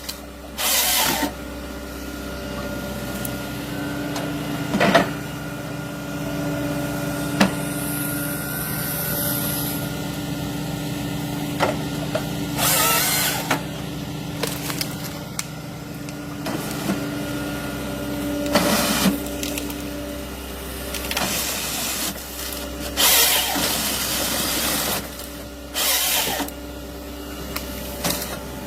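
A heavy machine's engine running steadily, with short bursts of harsh noise every few seconds.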